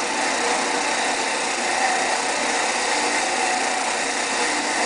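Disc sander running steadily, with the flat face of a segmented wooden bowl half held against the disc to sand it flat.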